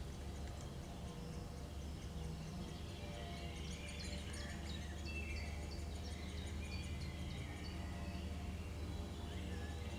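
Small songbirds singing in woodland, a rapid run of short high chirps and warbling phrases over a steady low hum.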